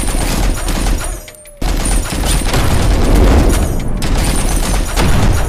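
Rapid gunfire sound effect, a dense run of shots that briefly drops out about a second in.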